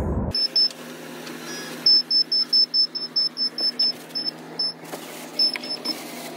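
High-pitched electronic warning beeper sounding in quick runs of about five beeps a second, over a steady low hum.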